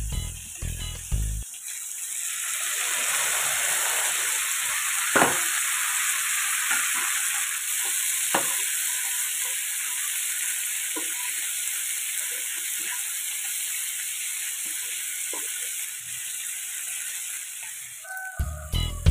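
Small prawns sizzling in hot oil with sliced onions in a nonstick wok, the sizzle swelling about two seconds in as they go into the pan and holding steady while they are stirred, with a couple of sharp spatula knocks against the pan. Background music plays at the very start and returns just before the end.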